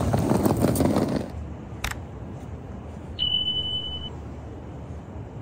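Loud rushing and clattering of a passing train, cut off abruptly a little over a second in. After it, a single click and then one steady high beep lasting about a second.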